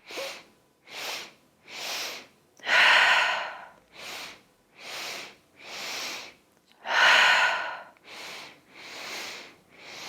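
Yogic three-part breath: three short sipping inhales through the nose, then one loud forceful exhale, repeating about every four seconds. Two full rounds, then the three inhales of a third.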